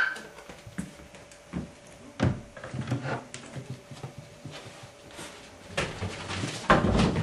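A few scattered soft knocks and bumps in a small room over a faint steady hum, with a louder run of scuffling thumps near the end.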